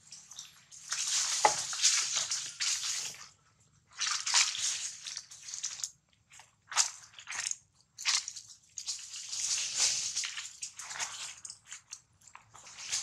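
Dry fallen leaves crunching and rustling in irregular bursts of one to two seconds, with short pauses between them.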